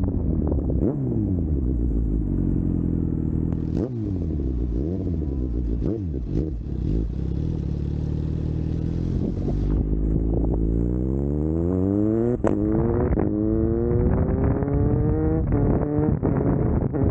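Superbike engine winding down with falling revs, a few quick throttle blips, then running low. From about ten seconds in it accelerates hard, revs climbing steadily, with gear changes at about twelve and fifteen seconds in.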